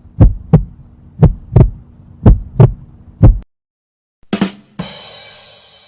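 Heartbeat sound effect: loud paired lub-dub thumps about once a second, stopping about three and a half seconds in. Then a short burst and a hissing noise that fades out.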